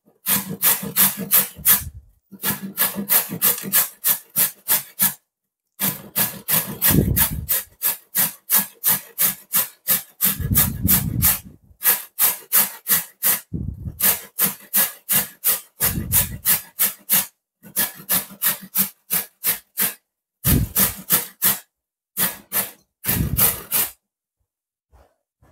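A carrot being grated on a metal box grater: quick rasping strokes, about three or four a second, in runs broken by short pauses, stopping shortly before the end.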